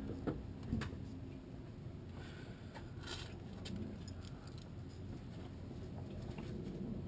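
Mazda 3's 2.5-litre four-cylinder engine idling steadily, heard up close at its Simota open cone intake, with a few light clicks in the first second.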